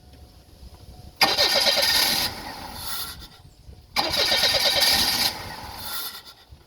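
A car's starter cranking the engine in two short attempts, each lasting a little over a second with a fast pulsing, and a fainter sound trailing off after each one. The car has an intermittent hard-starting fault.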